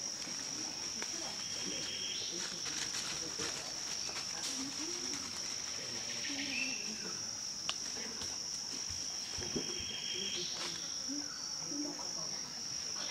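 Forest insects droning in one steady high-pitched whine. A few short whistled notes sound over it, and there is a single sharp click a little past halfway.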